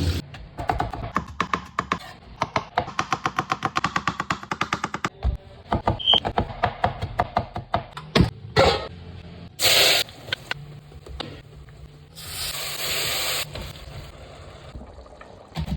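A knife chopping quickly and evenly on a cutting board for several seconds, then two short bursts of hissing from the cooking, the second lasting about a second.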